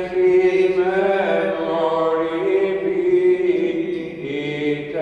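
Greek Orthodox Byzantine chant: a voice singing long held notes of a funeral hymn, moving slowly from pitch to pitch.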